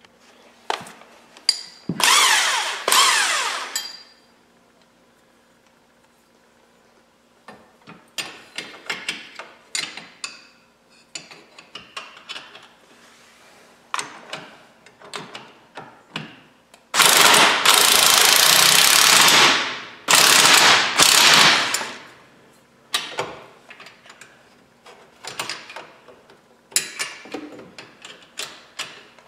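Power impact wrench driving the 15 mm bolts and lock nuts of a KFI winch mount, in two short bursts a couple of seconds in and a longer loud run of bursts past halfway. Between them come trains of ratchet clicks and clinks of tools on the steel hardware.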